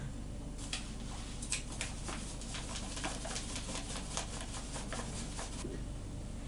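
Flour poured from a crinkling paper bag into a stainless steel mixing bowl: a run of faint paper crackles and patters that stops about a second before the end, over a steady low hum.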